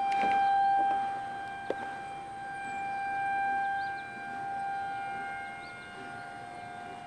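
Outdoor tornado warning siren sounding a steady wail, its single held tone swelling and fading in loudness as it sweeps around. It is sounding a tornado warning.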